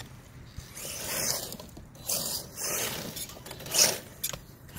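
Redcat Tornado RC car running on pavement: several short hissing scrapes of its tyres scrubbing on the asphalt, the loudest just before the end.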